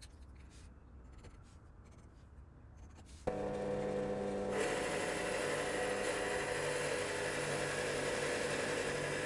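A power tool cuts in abruptly about three seconds in and runs steadily, with a whine held on several pitches, over a faint low hum.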